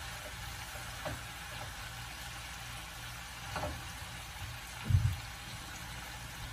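Malabar spinach leaves tipped from a plastic colander into a frying pan of spiced potatoes, over a low steady sizzle. There are a couple of light knocks, and a duller, louder thump about five seconds in.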